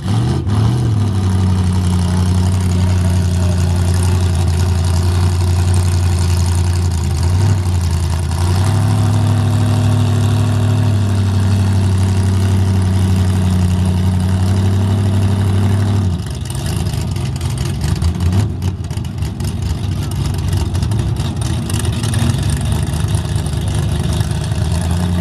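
Two compact pickup drag trucks' engines idling loudly while staged at the line, a deep steady drone. The note shifts about eight seconds in, drops away about sixteen seconds in, and builds again near the end.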